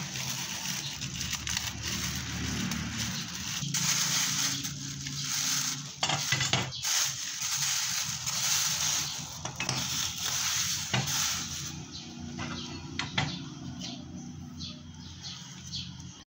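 Plastic wrapping crinkling and rustling as it is pulled and torn off the metal parts of a motorcycle top-box bracket, with occasional sharp clinks of the metal pieces.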